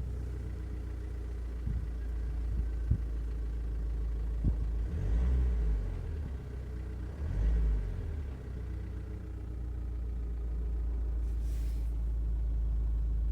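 SsangYong Korando engine running with a heavy low rumble, rising twice as it takes load, with three sharp knocks in the first half. The knock comes under load and on acceleration, and the owner asks whether it is the crankshaft pulley.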